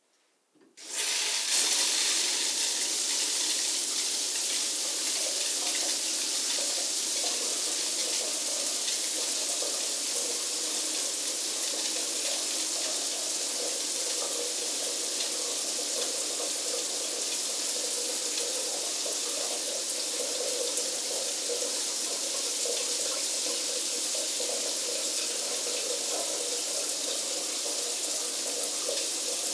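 A shower is turned on about a second in, and the water then sprays steadily.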